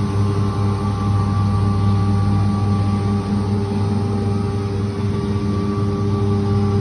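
CNC router running, a steady loud hum with a low drone and a few higher steady tones.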